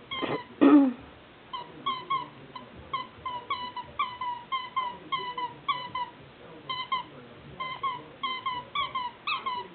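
Squeaker in a plush dog toy squeaking over and over as a puppy chews it: short, high squeaks about three a second, often in pairs, some dipping in pitch. A brief louder noise comes in the first second.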